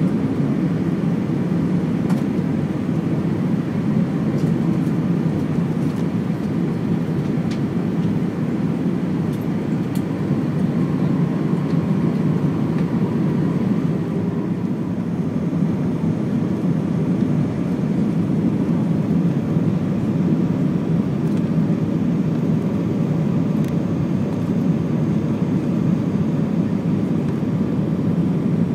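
Steady cabin noise inside a Lufthansa Airbus A319 descending on approach: the jet engines and the airflow over the fuselage make a low, even rumble that does not change.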